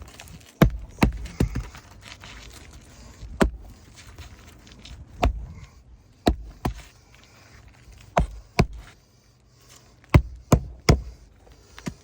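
Sharp hammer blows driving roofing nails into asphalt shingles, about a dozen strikes in short groups of two or three with pauses between.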